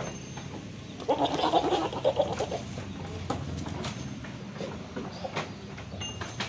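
Saanen goat giving a rough call about a second in, lasting under two seconds, with bucks in rut competing for a doe. A steady low hum runs underneath, and a couple of sharp knocks come a little later.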